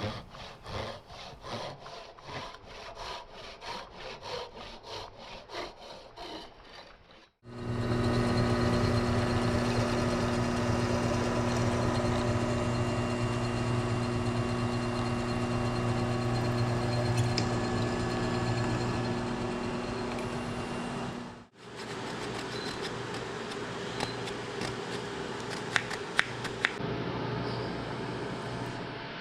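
Hand saw strokes through a walnut handle block, about two a second, for roughly the first seven seconds. Then a power tool runs steadily with a low hum for about fourteen seconds and stops. A quieter steady running sound with a few light clicks follows.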